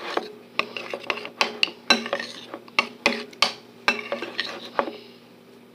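A utensil clinking and knocking against a mixing bowl as runny slime is stirred: quick, irregular taps that stop about five seconds in.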